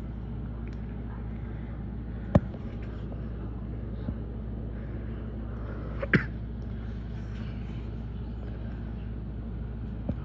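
Steady low background rumble, with sharp clicks: two loud ones about two and a half and six seconds in, and fainter ones near four seconds and at the end.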